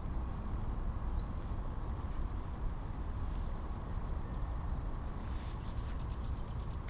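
Small birds chirping, with a fast trill of rapid notes about five seconds in, over a steady low rumble.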